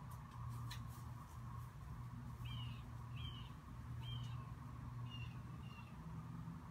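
A bird chirping: short calls repeated about once a second, over a steady low hum. A few faint clicks in the first second or so.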